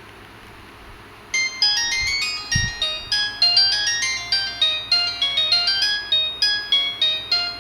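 Samsung GT-E1150 mobile phone playing a polyphonic ringtone through its small speaker: a quick, bright melody of short plinking notes that starts about a second in.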